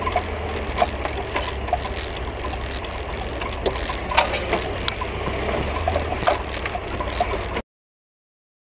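Steady low engine and road rumble inside a moving car, picked up by a dash cam, with scattered small clicks and rattles. The sound cuts off suddenly about a second before the end.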